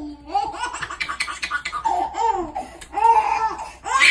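A person laughing hard in repeated high-pitched bouts, about one a second.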